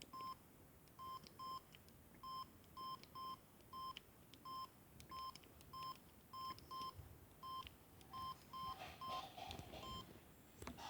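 Samsung SGH-X210 mobile phone playing a simple electronic ringtone: short, buzzy beeps all at one pitch, repeating in a rhythm of single and paired beeps.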